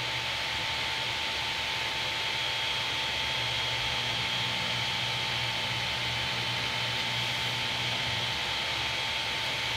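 Creality Ender 3 Pro's cooling fans running steadily while the printer is powered and preheated: an even whirring hiss with a thin, steady high whine.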